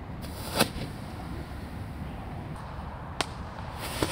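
Homemade bamboo-tube black-powder firework going off: a sharp pop about half a second in and a click about three seconds in, then near the end a sudden loud burst as the charge ignites and sprays sparks.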